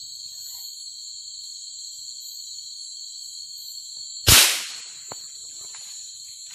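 A single loud rifle shot about four seconds in, a sharp crack with a short echoing tail. Night insects keep up a steady high-pitched trill throughout.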